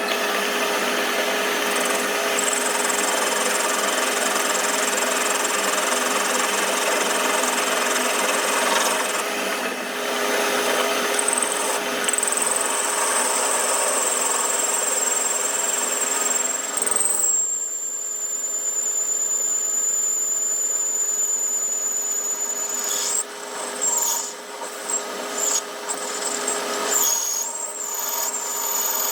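Power tool working metal: a steady motor hum and high whine under continuous scraping noise, breaking off briefly several times near the end.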